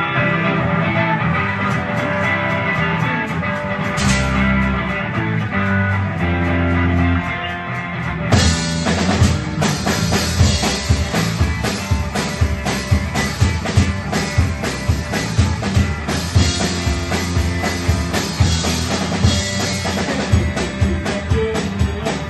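A live band playing: held, sustained chords at first, then the drum kit comes in hard about eight seconds in with a steady, driving beat.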